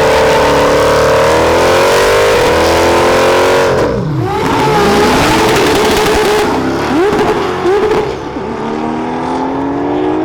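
Race-prepared car engines at full throttle in a roll-out drag race: a loud high engine note that holds, then drops sharply about four seconds in, followed by a few quick revs and a slowly rising engine note near the end.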